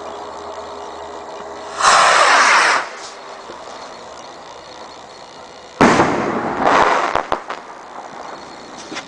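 Firework with strobing crackle and crossette effects going off in two bursts about four seconds apart. Each burst is about a second of dense crackling. The second opens with a sharp bang and ends in a few scattered pops.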